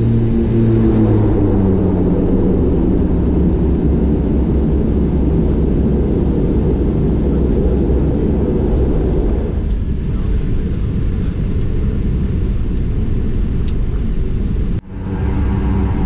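King Air A100's twin PT6A turboprops heard from the cockpit on the landing roll. The propeller tone drops in pitch, then a broad roar of the propellers in reverse eases off about ten seconds in. The sound cuts out abruptly near the end.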